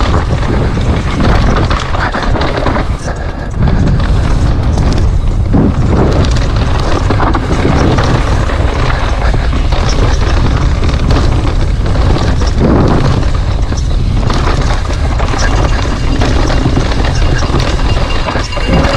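Heavy wind buffeting on the camera microphone of a downhill mountain bike at speed, with repeated knocks and rattles from the bike over rough ground.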